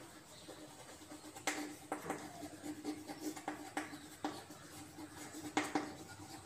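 Chalk writing on a chalkboard: irregular taps and short scrapes as the chalk forms letters, over a faint steady hum.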